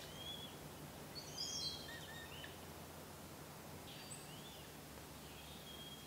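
Faint, scattered high-pitched bird calls, a few short notes at a time, over a low steady hum of woodland ambience.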